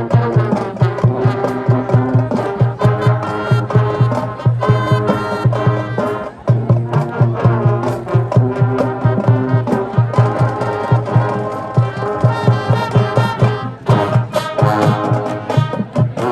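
High school marching band playing: brass horns carrying the tune over a steady, evenly spaced drum beat.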